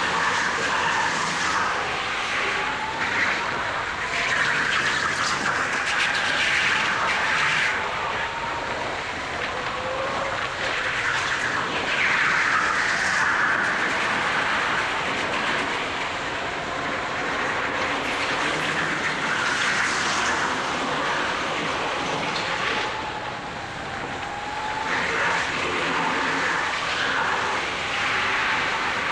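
Go-kart's motor running hard lap after lap, heard from a camera mounted on the kart: a steady tone that rises and falls gently with speed through the corners, under a rushing noise that swells at times.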